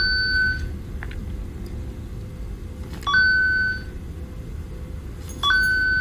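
A cat game app on a smartphone sounds a short electronic beep three times a few seconds apart, each with a small click just before it, set off by a cat's paw tapping the screen. A steady low hum runs underneath.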